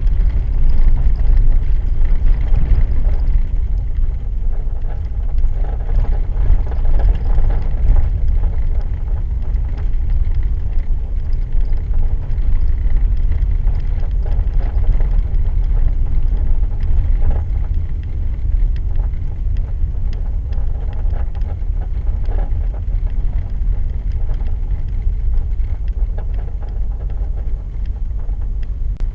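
A car driving on lake ice: a steady low rumble with faint mid-pitched tones that come and go, with an abnormal noise from the left rear of the car.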